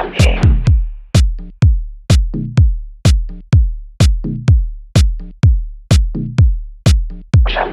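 Minimal techno: a drum-machine kick drum pounds steadily at about two beats a second, with short percussive clicks and pitched bass stabs between the beats. A hissy wash swells up at the start and again near the end.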